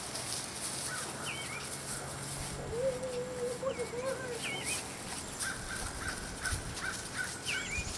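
Backyard hens calling: a long wavering call about three seconds in, short high chirps now and then, and a run of quick clucks near the end.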